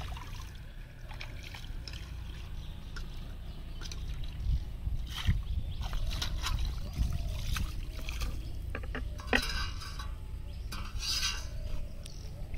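Pond water splashing and trickling as a metal bowl is dipped in and its contents flung out onto the surface, with a few louder splashes in the second half.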